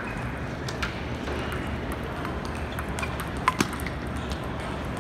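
Steady background noise of a large table tennis hall, with a few sharp clicks of celluloid ping-pong balls striking bats and tables in play at nearby tables. The loudest is a quick pair of clicks about three and a half seconds in.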